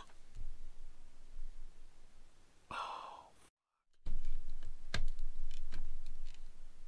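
A man's long, breathy sigh close to the microphone, then a short dead-silent gap where a word is muted out. This is followed by heavy breathing and rumbling handling noise on the microphone, with a couple of sharp clicks.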